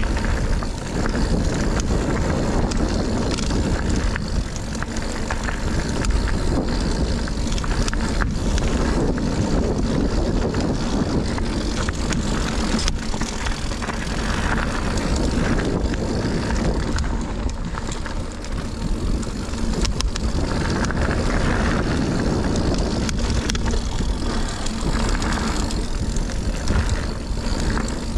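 Wind rushing over a helmet- or body-mounted action camera while a full-suspension mountain bike descends a dirt trail, with tyres rolling over the ground and scattered clicks and rattles from the bike.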